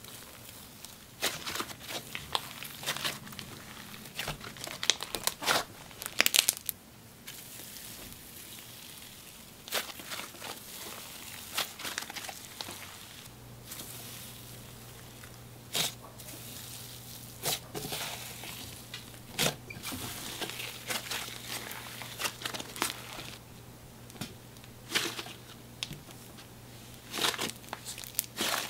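Sheets of silver foil paper packed into a thick cloud-cream slime crinkling and crackling as hands squeeze, fold and press it. Irregular sharp crackles come in clusters throughout.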